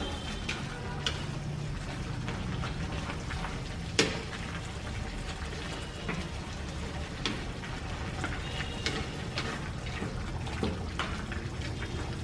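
Duck and sour bamboo shoots simmering in a pan on a gas burner, sizzling steadily while chopsticks stir and turn the pieces, with small clicks throughout and one sharp tap about four seconds in.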